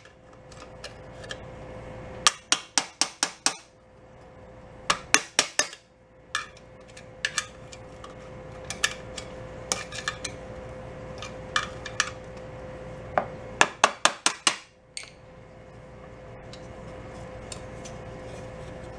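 Quick runs of sharp metallic taps, several in a row and then a pause, as a screwdriver works the sheet-metal locking tabs on a lawn mower's muffler bolts back down, over a faint steady hum.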